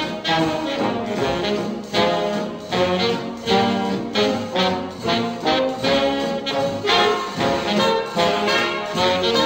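Instrumental background music led by brass instruments, with a regular beat.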